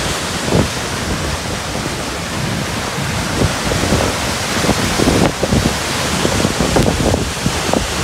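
Waterfall heard close up: a loud, steady rush of falling water with irregular surges.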